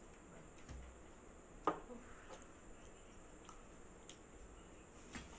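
Quiet eating at a table: hands picking fried rice off steel plates, with scattered small clicks and one sharper tap on the metal about a third of the way in.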